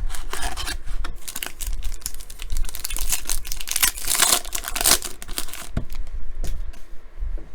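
Crinkling and tearing of a trading-card pack wrapper as the pack is torn open, with the densest crackle about three to five seconds in.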